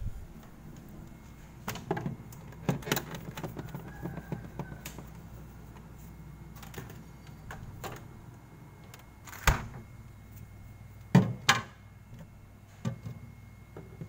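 Scattered clicks and knocks from hands and a screwdriver working on the plastic interior panels of a refrigerator compartment, with two louder knocks about two-thirds of the way in, over a steady low hum.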